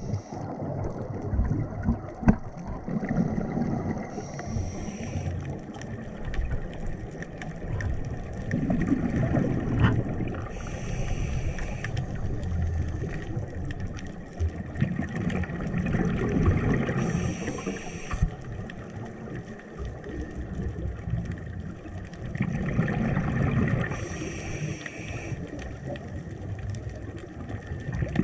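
Scuba diver breathing through a regulator underwater, four breaths. Each is a low, rumbling burst of exhaled bubbles followed by a short hissing inhale, about every six to seven seconds.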